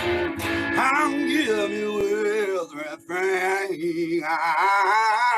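A male singer holds long, wavering notes without words over acoustic guitar strumming, in a blues-style song.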